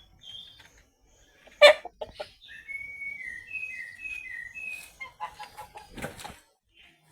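Chickens calling: a run of short, high peeping notes, then lower clucks near the end. A sudden loud sharp sound comes about a second and a half in.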